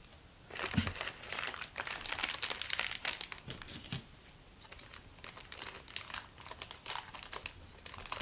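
Thin yellow plastic blind bag of a Grossery Gang toy crinkling and tearing as it is pulled open by hand. A dense crackle starts about half a second in, louder for the first three seconds, then softer.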